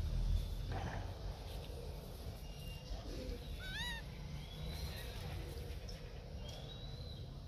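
A few short, high-pitched animal calls over a steady low rumble, the clearest one about four seconds in, rising then falling in pitch.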